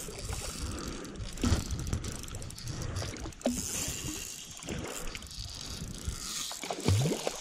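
A hooked fish splashing and thrashing at the water's surface while being played on a spinning rod, a steady rush of water noise with short splashy knocks.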